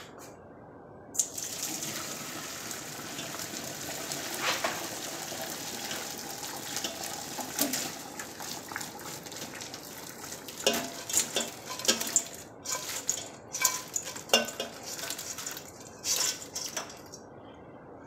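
Boiled crawfish and corn cooking water being poured from a big pot into a stainless steel colander in a sink: a steady splash of water starting about a second in. From about ten seconds in there is a run of knocks and clatter as the crawfish and corn tumble into the metal colander.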